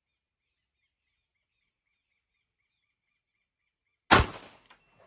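A single 9mm pistol shot from a Taurus G3 firing a handloaded round (Imbel Tucano powder, 5.4 grains, 125-grain bullet), about four seconds in, with a short echoing tail. Faint bird chirps repeat softly before the shot.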